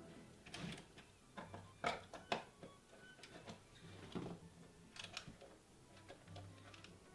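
Scattered small clicks and scrapes of a pry tool working at a trail camera's plastic case and parts, irregularly spaced, the sharpest about two seconds in.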